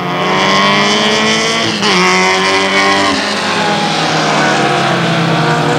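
Several race cars, mostly VW Beetles with air-cooled flat-four engines, running hard together through a corner, their engine notes rising and falling over one another. One engine's pitch drops sharply about two seconds in.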